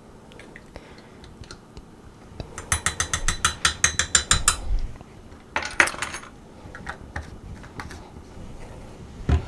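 Kitchen utensil handling while chili paste goes into the slow cooker: a quick, even run of clicks, about nine a second for two seconds, then a short metal-and-glass clatter about six seconds in, and a dull knock near the end.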